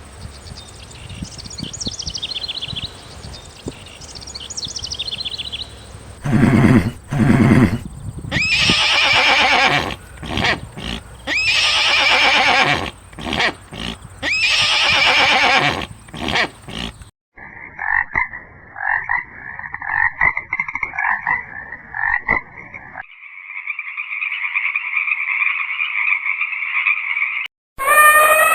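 Horses neighing and whinnying, several loud calls in a row, followed by other animal calls that switch in abruptly a few times, the last ones long and steady.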